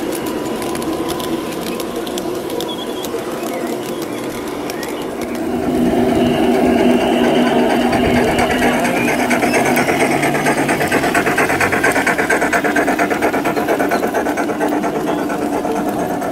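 G-scale garden railway train running past on the track: a steady motor-and-gear hum with wheels rattling over the rails. It gets louder about five and a half seconds in as the model steam locomotive and its coaches pass close, and later a fast, even rattling pulse sets in.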